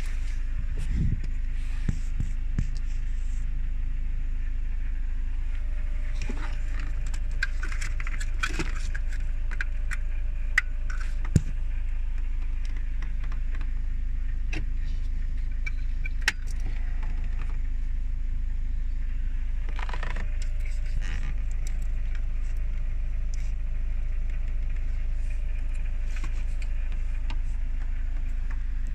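Scattered clicks and light rattles of plastic trim and wiring being handled inside a car, over a steady low hum.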